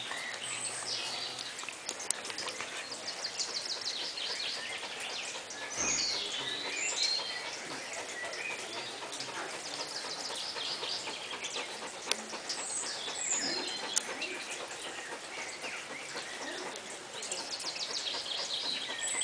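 A dog panting rapidly right at the microphone, a quick run of short breaths, after exertion that has left it exhausted. Birds chirp now and then in the background.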